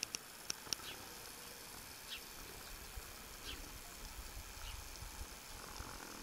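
Quiet countryside ambience with scattered short, faint bird chirps: a few close together in the first second, then one every second or so, over a low rumble.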